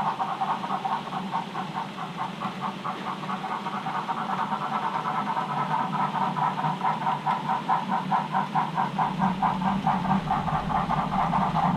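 OO gauge model train running on the layout: a steady hum with a fast, regular pulsing beat of about five pulses a second.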